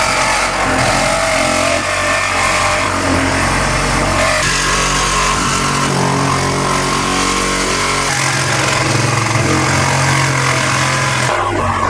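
Large vehicle engine running loudly and steadily, its note shifting a few times as the engine speed changes.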